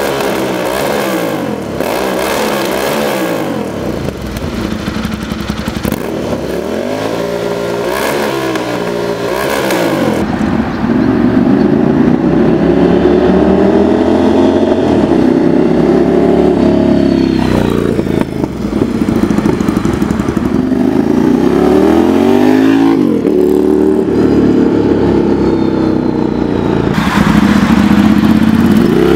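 Ducati Monster 796's L-twin engine through a TRR titanium full exhaust system: first revved in a series of rising and falling blips, then louder and sustained as the bike is ridden under acceleration, its pitch dropping and climbing again several times.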